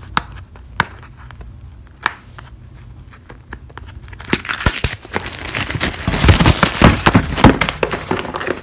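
Clear plastic wrap and tape being peeled and torn off a cardboard box, close to the microphone. A few sharp clicks as it is picked at, then from about four seconds in a long, loud crackling and crinkling as the plastic tears away.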